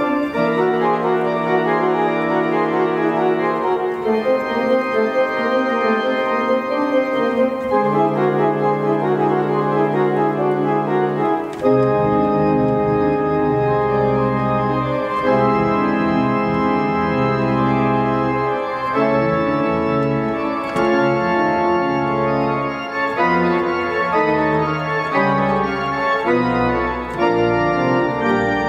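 Organ music played on manuals and pedals: held chords that change every few seconds, with a deep pedal bass coming in about twelve seconds in.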